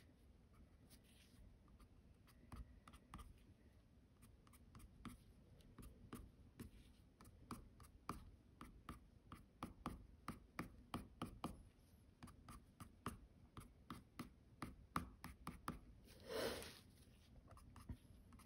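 White colored pencil (Caran d'Ache Luminance) tapping and dabbing on mixed-media paper to put down tiny dots, heard as quick faint ticks several times a second that grow more frequent partway through. There is one short, louder scrape of the pencil on paper near the end.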